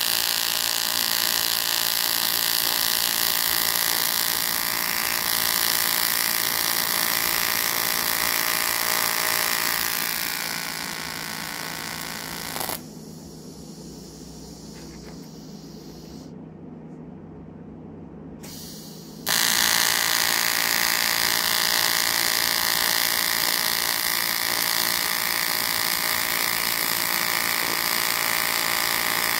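AC TIG welding arc on aluminium, buzzing steadily. About ten seconds in it tapers off, and near thirteen seconds it stops, leaving only a low hum for about six seconds. The arc then strikes again and buzzes on to the end.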